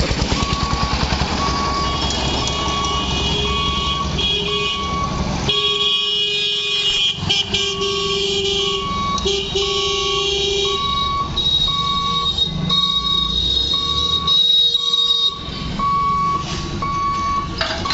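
Level-crossing warning beeper sounding a short, even beep about twice a second as the boom barrier comes down. A vehicle engine runs close by for the first five seconds or so, and vehicle horns honk, one held for several seconds in the middle.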